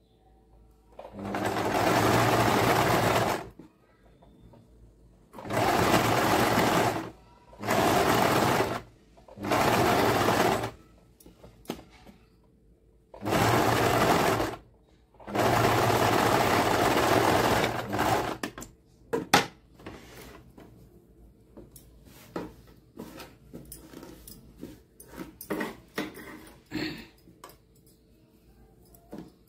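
Electric household sewing machine stitching a seam through saree cloth in six short runs, stopping and starting as the fabric is guided. In the last ten seconds the machine is quiet and the cloth is handled, with scattered light clicks and rustles.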